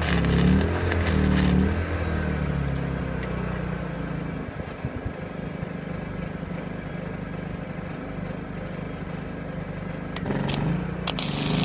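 An engine running steadily, louder at the start and again near the end, with a few light clicks.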